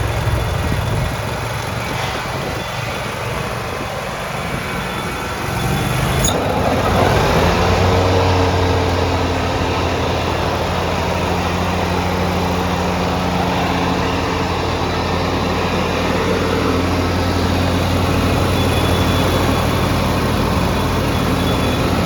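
Scag 61-inch zero-turn mower's engine running, throttled up about six seconds in with a rise in pitch and loudness, then running steadily at the higher speed. A sharp click comes as the engine speeds up.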